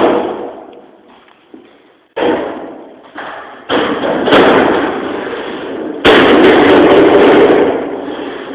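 Objects being knocked about and set down: a series of sudden thumps and knocks. The loudest, about six seconds in, is followed by a clattering that dies away over about two seconds.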